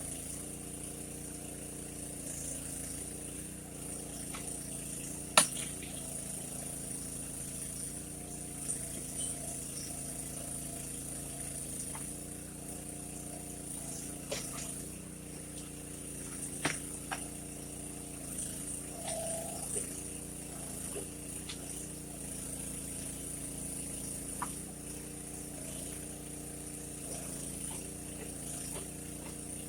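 The mini backhoe's small engine running steadily at idle, with scattered clicks and knocks; a sharp click about five seconds in is the loudest.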